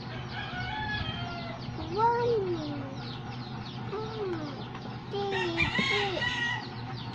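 A toddler's high voice calling out short words, one every second or two, as number flash cards come up, over a faint, rapid high cheeping throughout.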